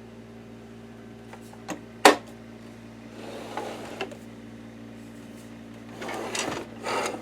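Plastic parts of a sewing machine being handled during disassembly: a small click, then a sharp loud snap about two seconds in, followed by scraping and rustling of parts being moved, over a steady low hum.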